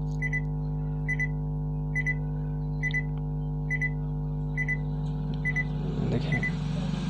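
Bluetooth speaker beeping over and over, a short high double pip roughly once a second, over a steady low hum; it beeps instead of playing. The beeping is the fault symptom, which the repairer traces mostly to a broken solder joint on the volume-plus and power buttons, worn from repeated pressing. Near the end a brief, louder, noisier sound comes in.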